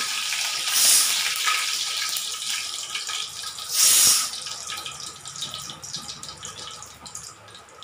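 Cumin seeds spluttering in hot oil in an aluminium kadai: a dense crackling sizzle with rapid fine pops. It flares louder twice, about one and four seconds in, and dies down toward the end. The spluttering is the sign that the oil is hot enough for the tempering.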